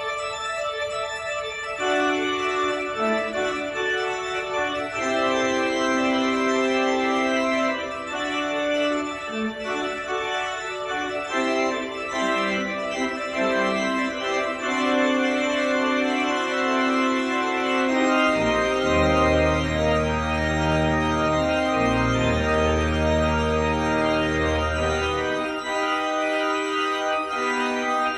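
Church pipe organ playing the postlude: sustained, changing chords on the manuals, with deep pedal bass notes coming in about two-thirds of the way through.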